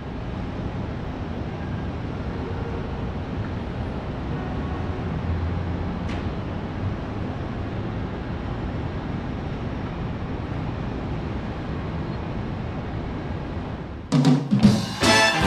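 A steady, even din of noise with no clear sound standing out; then, about fourteen seconds in, a live band starts suddenly with loud drum-kit strikes and the rest of the band coming in.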